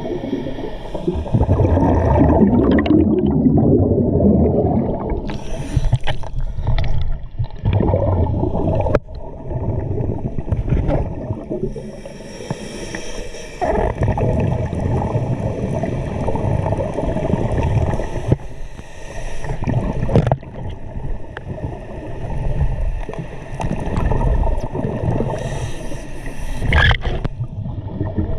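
Underwater recording of a scuba diver breathing through a regulator: a steady low gurgling of exhaust bubbles, with a short hissing inhalation every several seconds.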